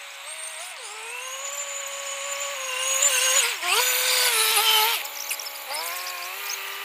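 Small tracked rice-field transport cart driving under load, its engine and drive giving a steady whine whose pitch dips and rises as it works through the mud. The sound changes abruptly about five seconds in.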